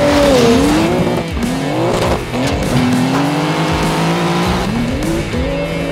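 Singer ACS Porsche 911's air-cooled flat-six revving hard under load while the car slides on loose sand. The engine note drops early on, climbs and holds, dips near the end and climbs again, over the hiss of tyres spinning through sand.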